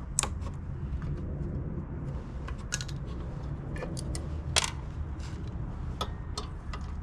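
Irregular small metallic clicks and clinks of hand tools and parts being handled while a lawnmower carburetor is taken off, over a steady low rumble. The two sharpest clinks come just after the start and about four and a half seconds in.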